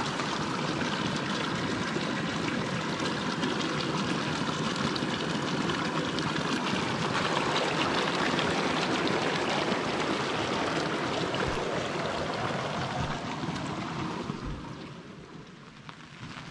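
Steady rushing of running water, like a fast-flowing stream, easing off about two seconds before the end.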